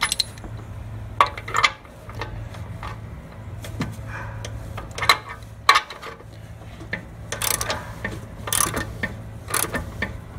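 Irregular metallic clicks and clinks of a 19 mm wrench tightening a brass dipstick fitting into the oil pan bung, snugged down carefully by hand so the brass does not break. The clicks are sparse at first and come more often in the last few seconds.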